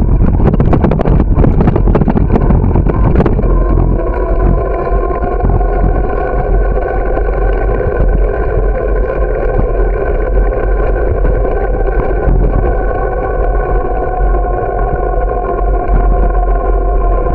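Bicycle ride noise picked up by a camera on the bike: rattling and knocking for the first few seconds, then a steady, even hum as the bike rolls along smooth asphalt.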